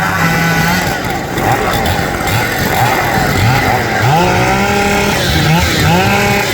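Two-stroke chainsaw engine revving hard in bursts, its pitch sweeping sharply upward about four seconds in and twice more near the end.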